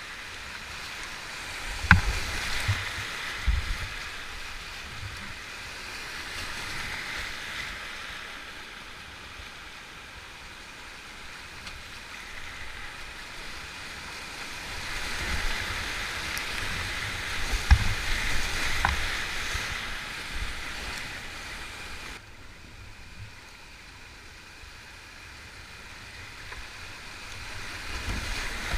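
Rushing whitewater of a steep rocky creek run in a kayak, the rush swelling and fading through the rapids. Sharp knocks come a few times, near the start and about two-thirds through. The rushing drops suddenly quieter about three-quarters of the way through.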